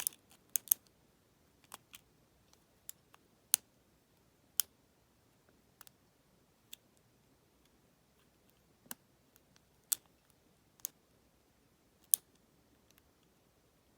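Sharp, irregular clicks of a lock pick working the pin stack inside a Federal PL90PE lockout padlock, with about a dozen spaced a second or so apart.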